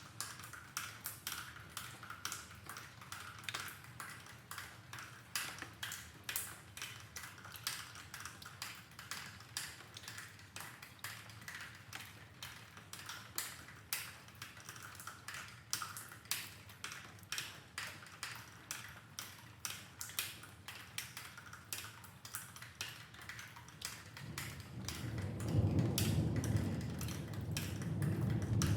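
Rainwater dripping, sharp drips tapping about two or three times a second. About 25 seconds in, a low rumble of distant thunder swells up under the drips.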